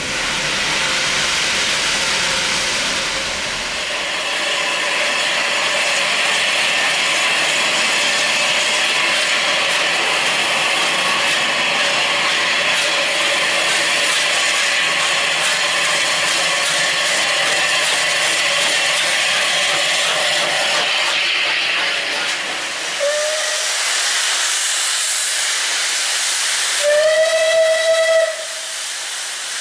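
Steam locomotive 34092 City of Wells, a Bulleid West Country class pacific, letting off steam in a loud steady hiss for about twenty seconds. Then a brief whistle toot, and near the end a longer, louder whistle blast of about a second and a half.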